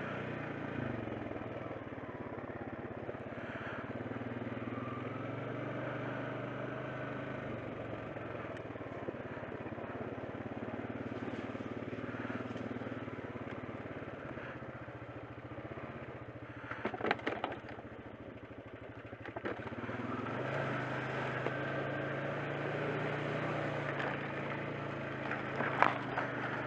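ATV engine running at low trail speed, its pitch rising and falling with the throttle and easing off for a few seconds past the middle. Brush and branches snap and scrape against the machine in short bursts about two-thirds of the way through and again near the end.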